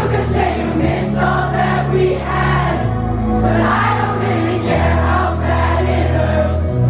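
Live pop concert music, recorded from the audience: amplified band with deep sustained bass notes changing every second or two, and singing over it.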